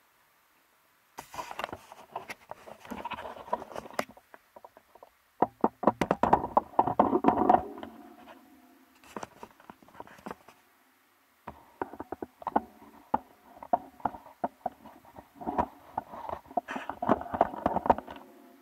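Handling noise on the camera body: spells of rubbing and scraping with many clicks and knocks as the camera is moved and reframed.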